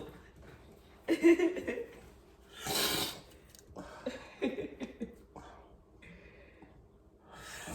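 A man crying quietly: sharp breathy inhales and exhales with a short choked vocal sound about a second in and a few small broken vocal sounds after it.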